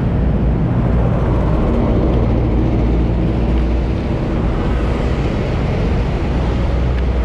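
Steady vehicle engine hum and road noise from travelling along a road, an even, unbroken drone.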